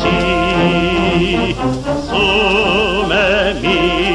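A Japanese song with a solo singer holding long notes with wide vibrato over instrumental accompaniment.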